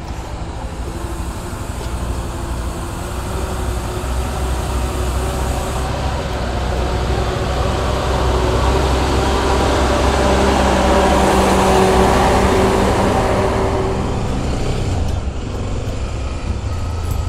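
Honda XRE 300 single-cylinder motorcycle running along a dirt road, while a big truck's engine noise grows louder, peaks about ten to thirteen seconds in and fades again as it passes.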